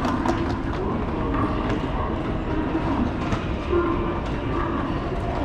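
Electric commuter train moving along the platform: a steady rumble of wheels on rails with occasional sharp clicks.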